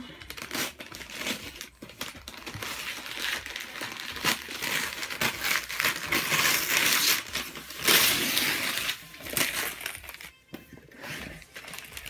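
Newspaper wrapping crinkling and tearing as a present is unwrapped by hand, loudest about six to eight seconds in.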